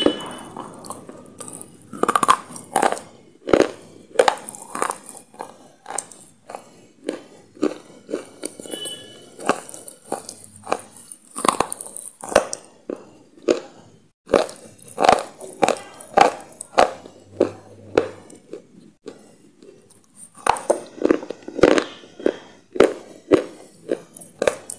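A person chewing crisp, crunchy food close to the microphone: a continuous run of sharp crunches and bites, several a second, with a short lull about three-quarters of the way through.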